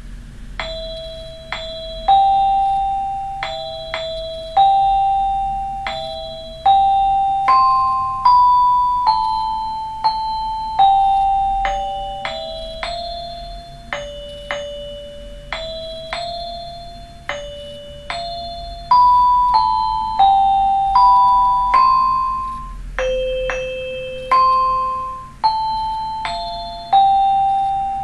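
Vibrafun touchscreen xylophone app sounding bell-like mallet-percussion notes as the on-screen bars are tapped with two stylus mallets. It plays a simple melody one note at a time, about one to two notes a second, each note struck and ringing down.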